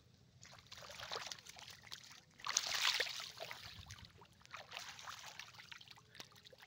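Fish thrashing and splashing in shallow muddy water, in irregular bursts with a bigger splash about two and a half seconds in.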